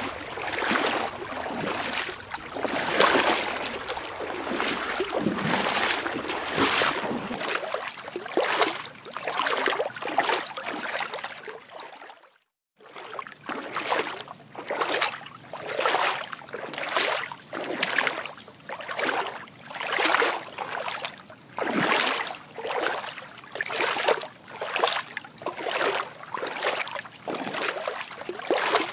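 Rhythmic water sloshing, swelling and fading about once a second, with a brief gap of silence about twelve seconds in.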